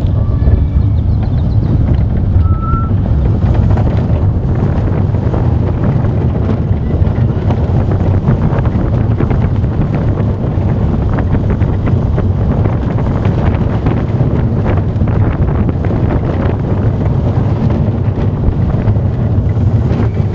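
Wind buffeting the microphone over the rumble and rattle of a small family roller coaster train running along its track, heard from a seat on board.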